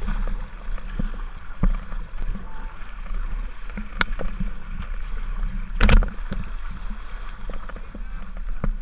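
Whitewater kayak being paddled down a river: water splashing against the hull and paddle blades, with a few sharp knocks, the loudest about six seconds in.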